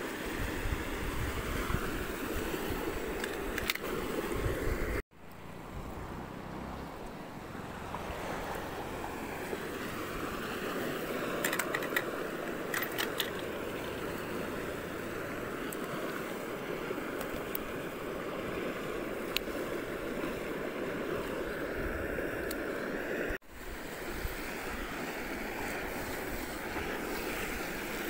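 Steady rushing noise of a swollen river flowing past the bank, mixed with wind on the microphone. It drops out abruptly twice, about five seconds in and about five seconds before the end.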